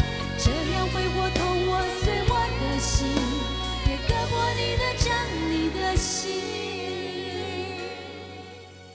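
Woman singing a Mandarin pop ballad live with band accompaniment. The bass and drums drop out about six seconds in, and the music grows softer towards the end.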